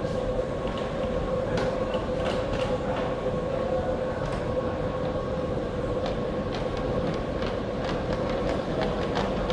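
A model tram running on a layout's track: a steady hum with scattered light clicks through it.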